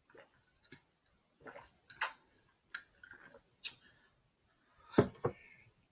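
A handful of sharp clicks and small knocks from drinking out of a glass and setting it down on the table, the loudest about two seconds in and a double knock near the end.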